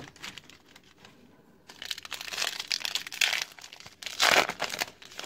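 Foil wrapper of a Topps trading card pack crinkling as it is pulled and ripped open by hand, with the loudest tearing rustle a little after four seconds in.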